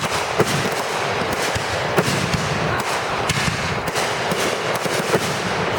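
Fireworks going off in a continuous barrage of crackling and sharp pops, the loudest pops about half a second and two seconds in.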